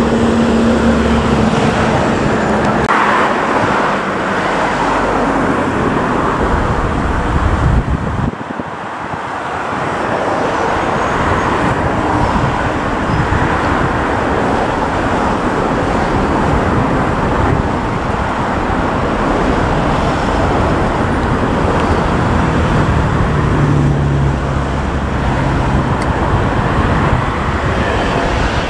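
Jet airliner engines running on the runway and taxiway, a loud, steady noise with a short dip about eight seconds in.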